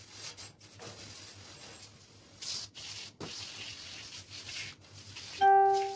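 Bird cage being scrubbed: uneven rubbing strokes of a brush or cloth on the cage. Near the end comes a loud, steady, pitched call about half a second long.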